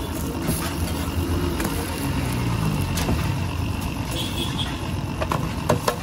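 A steady low rumble, with sharp metallic taps and scrapes of a metal spatula on a large flat griddle (tawa), a few at first and several in quick succession near the end.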